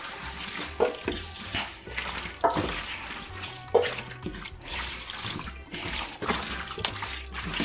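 Raw seasoned chicken pieces being mixed and turned by hand in a stainless steel sink: irregular wet slaps and slithering of meat on steel.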